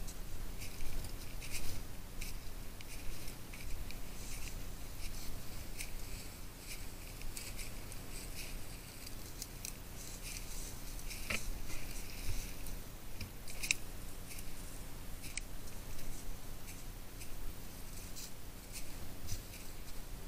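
Footsteps crunching and rustling through dry fallen leaves and twigs on a woodland slope, an irregular run of crackles with a few sharper snaps, one about eleven seconds in and another a couple of seconds later.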